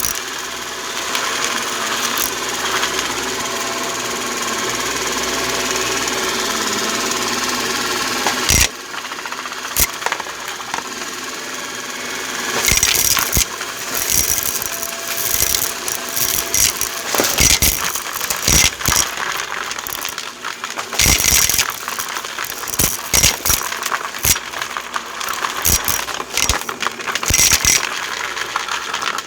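A motor running steadily with a faint whine, changing abruptly about eight seconds in. After that, a rattling clatter of small hard objects with many sharp clicks continues over the running motor.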